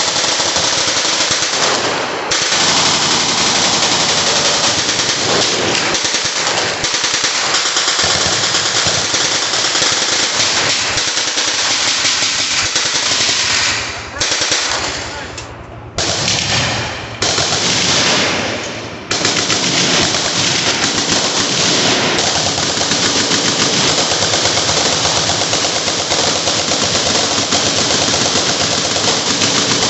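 Automatic gunfire from machine guns on a firing line: dense, overlapping bursts that run almost without a break, with a few short lulls about halfway through.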